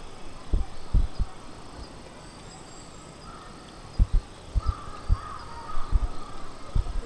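A scattering of irregular dull thumps, several close together a few seconds in. A faint bird call runs in the background through the middle.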